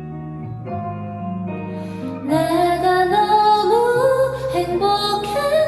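A soft ballad's instrumental backing, then a woman's singing voice comes in a little over two seconds in and the music grows louder.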